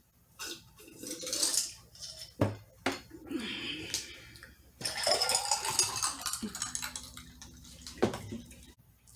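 Drinking glass set down on a tray with two knocks, then a drink poured into it for a couple of seconds, the sound rising in pitch as the glass fills. A last knock near the end as the glass or bottle is set down.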